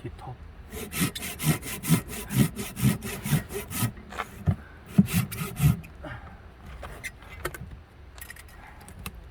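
Hand saw cutting through a thick, very hard dry log in quick back-and-forth strokes. It pauses briefly about four seconds in, picks up again, then slows to a few fainter strokes near the end.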